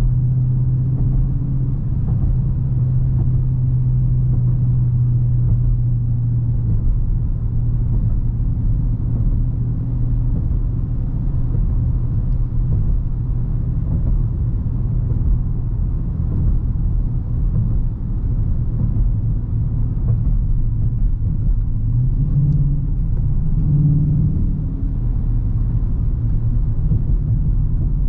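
Stock Dodge Charger R/T's 5.7-litre V8 running at a steady cruise, a low engine drone over road and tyre noise. The engine note rises briefly a little over twenty seconds in as it picks up revs, then settles again.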